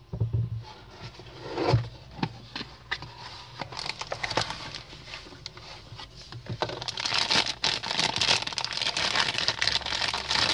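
A cardboard box handled and opened, with a few knocks and scrapes, then thin plastic packaging bags crinkling and rustling as a brass-finish door lever handle is unwrapped. The crinkling is loudest in the last few seconds.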